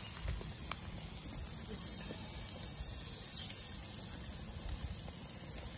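Raw beef burger patties sizzling on the grill of a gas barbecue: a steady hiss with a few faint pops.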